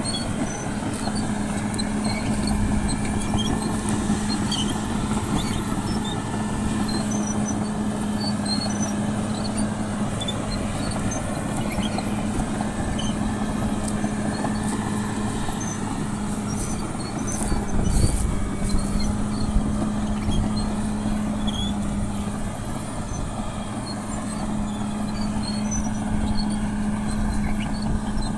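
Caterpillar D6R bulldozer's diesel engine running at a steady pitch under light load while pushing sugarcane trash, with a few louder knocks about two thirds of the way through.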